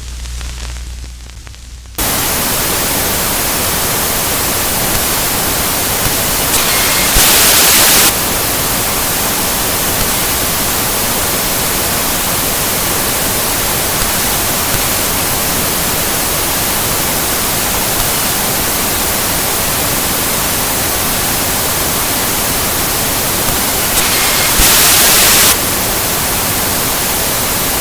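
Television static sound effect: a loud, even hiss of white noise, broken by two louder, harsher glitch bursts, one about 7 seconds in and one near the end. It opens with about two seconds of quieter low hum before the static cuts in suddenly.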